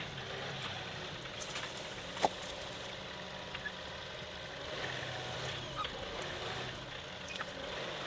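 John Deere 2038R compact tractor's diesel engine running steadily as the tractor creeps forward with its loader grapple. A single sharp knock about two seconds in.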